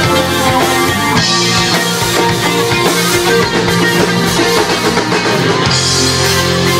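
Rock band playing live: distorted electric guitars, bass guitar and a drum kit, with cymbal crashes about a second in and again near the end.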